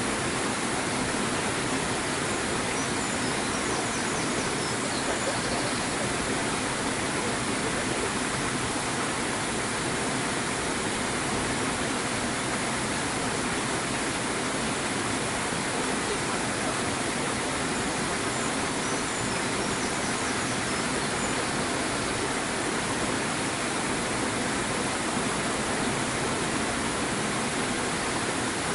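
Steady rushing water, an even hiss that holds at one level throughout, with faint high chirps twice.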